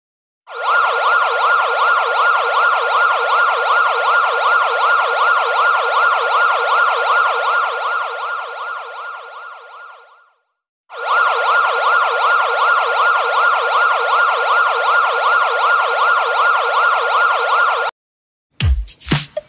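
Ambulance siren sound effect, its pitch sweeping rapidly up and down over and over. It fades out, stops for about half a second, then starts again and cuts off suddenly. Just before the end an electronic dance beat starts.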